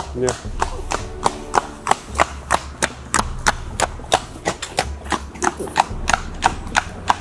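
Horse's hooves clip-clopping on a tarmac road at a walk, a steady beat of about three hoof strikes a second.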